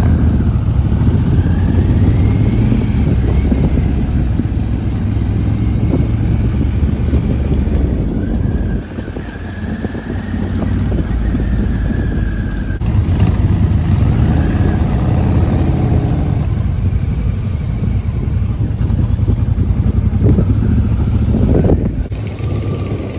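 Motorcycle engine running steadily, with a faint high whine that rises and falls twice; the level dips briefly about nine seconds in.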